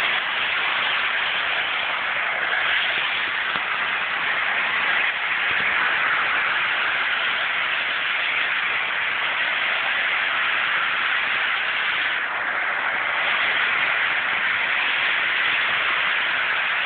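Long Island model train set running around its track, a steady hissing whir of the wheels and motor.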